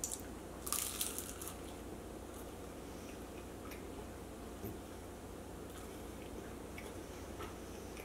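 A bite into a piece of flaky phyllo baklava: a quick cluster of crisp crackles in the first second and a half, then soft, mouth-closed chewing with occasional small clicks.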